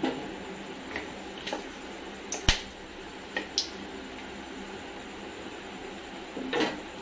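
Whole spices (dried red chillies, cinnamon, cardamom and cloves) frying in hot oil in an aluminium kadai: a faint steady sizzle with a handful of sharp pops, the loudest about two and a half seconds in.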